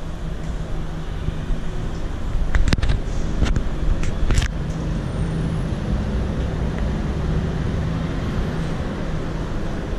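Steady low rumble of road traffic, with a few sharp clicks and knocks about three to four seconds in.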